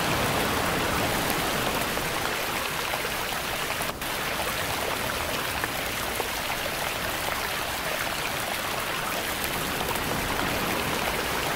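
Soundboard nature sound effects layered together: rain, sea waves, trickling water and wind playing at once as a steady wash of water noise, with a brief dip about four seconds in.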